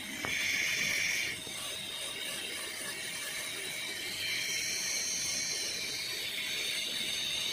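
High-speed dental air-turbine handpiece whining as its diamond bur grinds the occlusal surface of a typodont molar during occlusal reduction for a crown preparation. The whine is louder for about the first second, eases, then strengthens again about halfway through.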